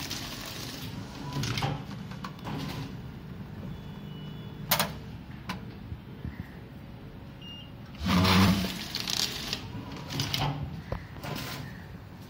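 Weigh-metric granule packing machine running through its cycle: a loud buzz about 8 seconds in, several shorter clunks, and a sharp click about 5 seconds in, over a steady machine hum.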